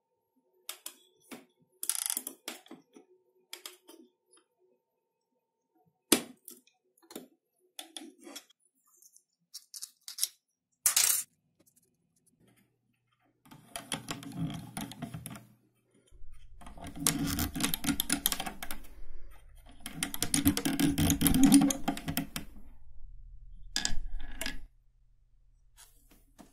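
Small metal parts of a wooden model ballista clicking and tapping against brass washers and wood as the cord torsion bundle is twisted tight with a rod and pliers. Past the middle come three longer stretches of dense rattling and scraping.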